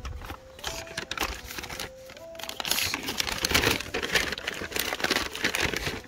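Crinkling and rustling of packaging with irregular small clicks and knocks, as hands rummage through boxes of tools and parts looking for a drill bit.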